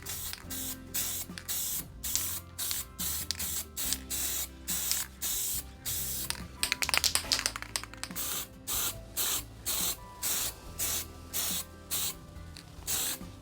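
Aerosol spray-paint can spraying in many short puffs of hiss, about two a second, with a few longer sprays among them.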